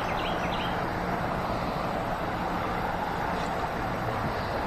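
Creek water running steadily, a constant even rush, with a few short high chirps in the first second.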